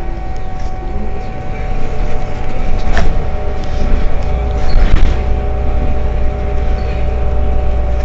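Heuliez GX 327 city bus engine running and pulling away from a stop, a steady low rumble with a sharp knock about three seconds in.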